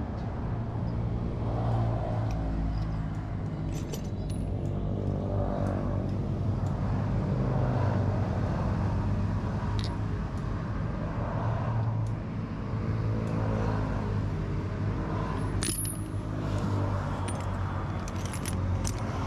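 An engine running steadily with a low hum, while small metal engine parts clink and jingle now and then as they are handled, most busily near the end.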